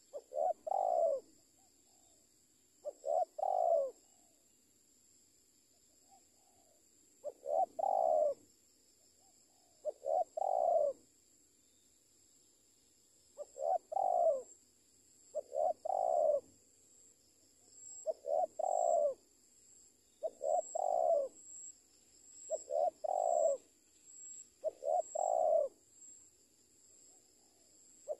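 Spotted dove (tekukur) cooing: a repeated coo phrase, each a short note followed by a longer one, about ten times at intervals of two to three seconds.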